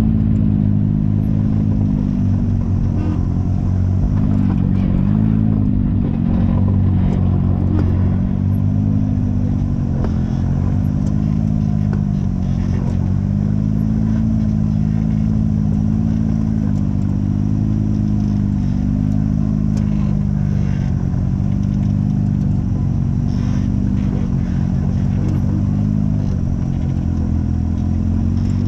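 Off-road vehicle engine running continuously, its revs rising and falling gently, with scattered clicks and knocks over it.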